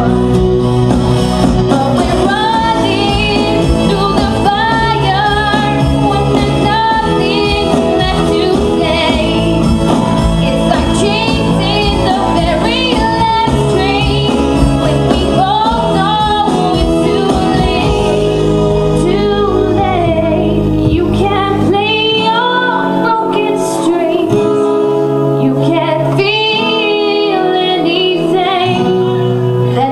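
A woman singing a song live into a handheld microphone over amplified instrumental backing. The low bass drops out for a couple of seconds about two-thirds of the way through, then comes back.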